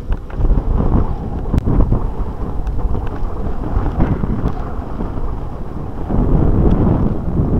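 Wind rumbling on the microphone of a moving mountain bike, with the low shaking of riding over a dirt track and a few sharp clicks and rattles from bumps.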